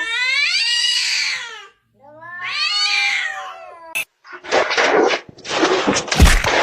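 A cat yowling: two long, drawn-out calls that rise and fall in pitch. Then a sharp click and a couple of seconds of rough, noisy sound.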